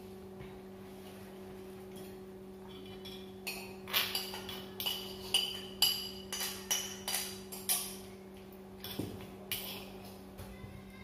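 Spoons and serving utensils clinking against plates and dishes as food is served, an irregular run of sharp ringing clinks starting a few seconds in and thinning out near the end, over a steady low hum.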